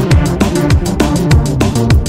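Electronic background music with a fast drum-and-bass beat: deep kick drums that drop in pitch, about two a second, under quick hi-hats.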